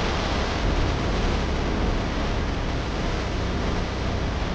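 A steady rushing noise with a deep rumble underneath it, starting to fade near the end.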